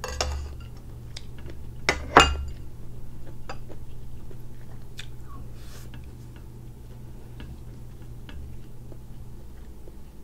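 A person chewing grilled satay cuttlefish close to the microphone, with scattered soft mouth clicks. Two sharp clicks about two seconds in are the loudest sounds.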